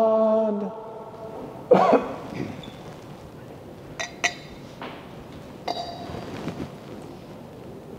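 A held chanted note dies away under a second in, followed by a single cough and a few light clinks of glass candle holders.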